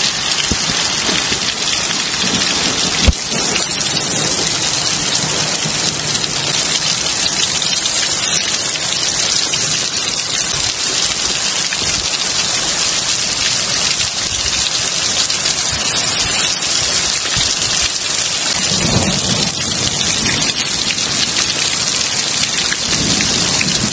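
Heavy downpour of rain, a steady dense hiss. A single sharp click about three seconds in, and low rumbles of thunder twice near the end.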